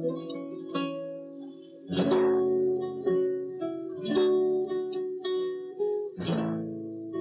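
Guitar music: single plucked notes, with a full strummed chord about every two seconds.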